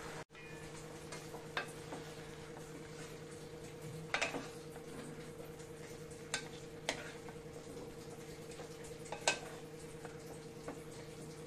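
Wooden spatula scraping and knocking against a steel kadhai and plate in a handful of short, separate strokes as steamed onions, tomatoes and cashews are scooped out. The loudest strokes come about four seconds in and just after nine seconds, over a steady low hum.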